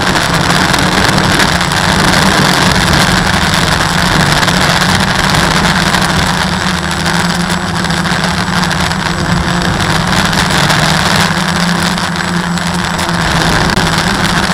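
Walkera QR X350 quadcopter's electric motors and propellers buzzing loudly and steadily, heard up close from a camera mounted on the craft. The pitch holds nearly level as the quad hovers in place under GPS hover hold.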